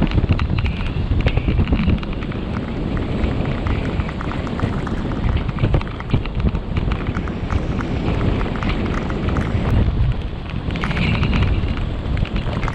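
Wind buffeting the camera microphone on a fast road-bike descent, a loud, steady low rush, with the tyres crackling and rumbling over rough asphalt throughout.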